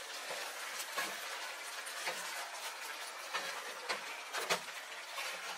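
Chicken and sliced onion sizzling in a pot while a spatula stirs them, with several short scrapes and knocks of the spatula against the pot.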